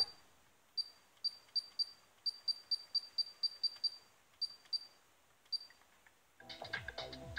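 Pioneer Carrozzeria MEH-P005 car stereo giving about fifteen short high beeps, one per button press, as the FM tuner is stepped up manually with the sound muted between stations. About six seconds in, music from the newly tuned station comes in.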